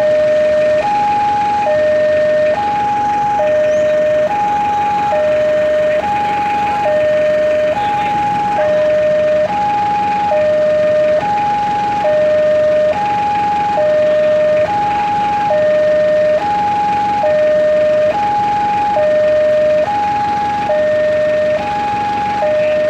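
Railway level-crossing warning alarm sounding a steady two-tone chime, alternating evenly between a higher and a lower tone, each held a little under a second.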